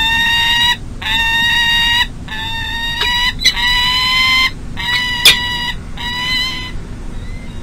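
Peregrine falcon calling close to the microphone: a series of about six drawn-out calls, each under a second and rising slightly in pitch. A couple of sharp clicks come through, the louder one about five seconds in, over a steady low hum of city noise.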